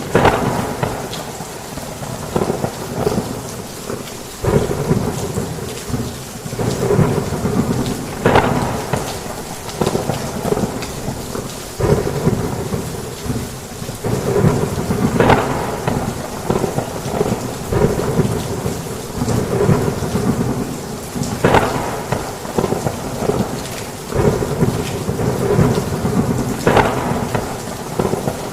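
Heavy rain pouring on a roof with rolling thunder, the rumble swelling and easing every second or two, with a few sharper cracks standing out.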